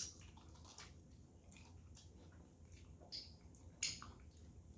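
Faint wet mouth sounds of someone chewing a piece of fried chicken: a handful of short smacks and clicks spread over a few seconds.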